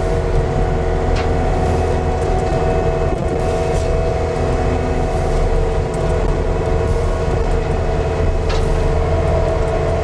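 Cat 299D compact track loader's engine running steadily under load while its hydraulic industrial brushcutter spins, cutting grass and brush: a constant drone with several steady whining tones over it, and a few faint ticks.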